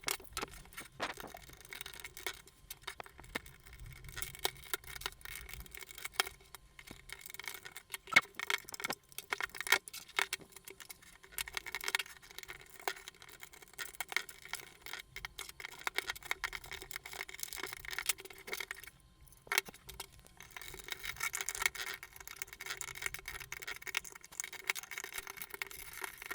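Plastic pry tools scraping and clicking against the plastic housing of a car climate control unit as its retaining pins are pushed in and the two halves are worked apart: irregular scratches, rubs and sharp little clicks, over a faint steady hum.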